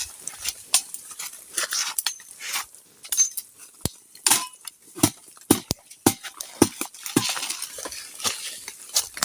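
Footsteps pushing through dry forest undergrowth: irregular crunching of dry leaves and snapping twigs, with brushing of vegetation.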